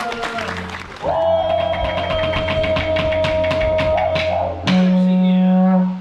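Live didgeridoo drone played for a traditional Aboriginal dance, with quick, even, sharp percussive beats over it. About two-thirds of the way through, the drone jumps to a louder, higher note.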